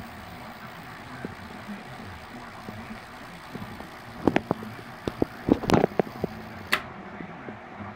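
High-voltage fractal (Lichtenberg) wood burning: a steady low electrical hum with sizzling from the burning wood, then sharp crackles and pops from about four seconds in as the arc burns along the wet wood, ending in a loud snap near seven seconds.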